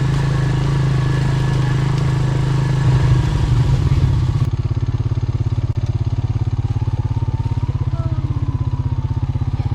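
A vehicle engine running steadily. About four and a half seconds in, the sound changes to an evenly pulsing, lower engine note.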